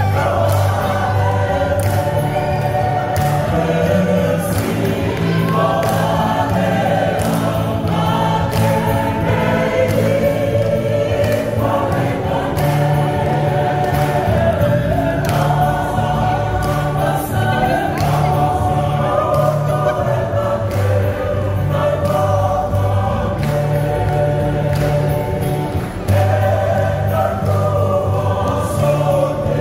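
Women's choir singing a song in several-part harmony, with held notes and smooth slides between them, over steady low bass notes that change every couple of seconds.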